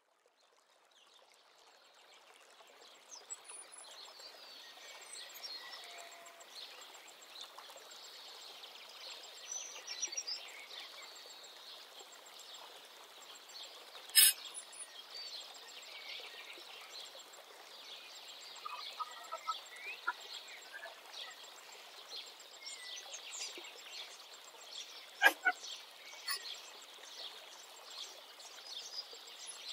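Outdoor ambience of many birds chirping and calling, fading in over the first few seconds. Two sharp clicks stand out, one about halfway through and one near the end.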